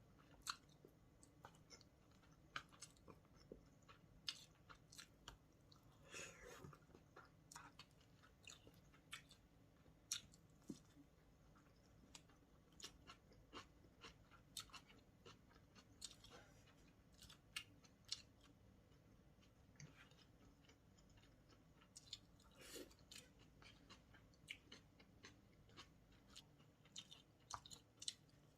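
Faint chewing by someone eating, with small sharp clicks scattered irregularly throughout.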